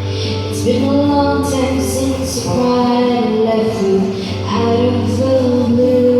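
Music: a song's instrumental opening, with held chords that change every second or so and a few light high strokes.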